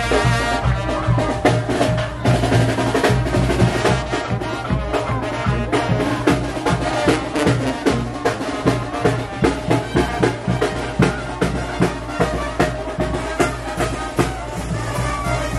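Marching brass band, sousaphone and trumpets over drums, playing a dance tune with a steady beat of about two strokes a second.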